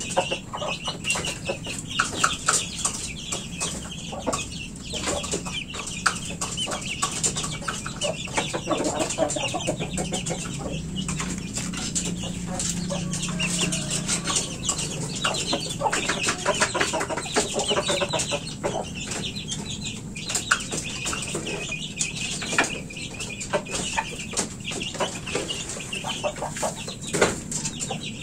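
Chickens clucking as they move about the coop, with a steady scatter of short taps and an occasional flutter of wings.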